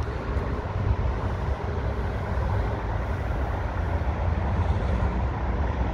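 Wind buffeting the microphone outdoors: a continuous, uneven low rumble with a steady hiss above it.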